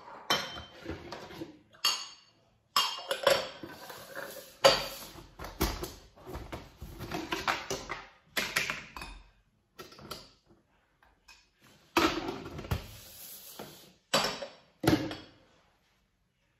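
Dishes and kitchen utensils clattering and knocking on a kitchen counter in short bursts, some hits with a brief ring, with short pauses between.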